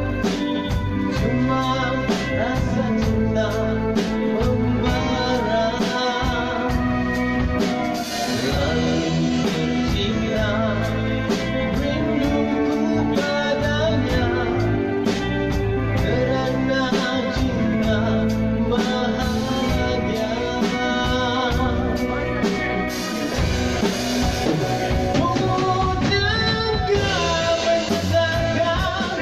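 Live band playing a reggae arrangement on drum kit, bass guitar, electric guitar and keyboard, with a steady, evenly struck beat.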